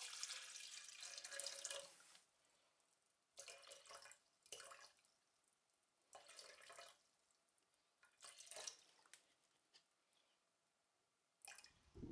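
Water poured from a plastic bottle into a plastic measuring jug on a kitchen scale: a pour of about two seconds, then four short spurts with pauses between, topping up to a weighed amount.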